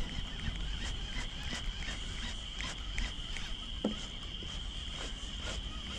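A steady, high-pitched chorus of small calling animals, with scattered faint clicks and a soft knock about four seconds in.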